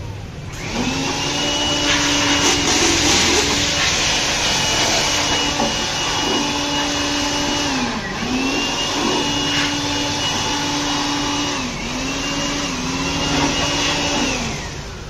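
Electric air blower running in long bursts, its motor whine rising as it spins up and dropping each time it is let off, then starting again, three times over. It is blowing out a loudspeaker cabinet stripped of its foam.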